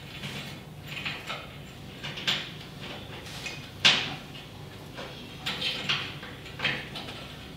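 Metal parts and hand tools being handled while bolts are fitted: irregular short scrapes and clicks, the sharpest about four seconds in.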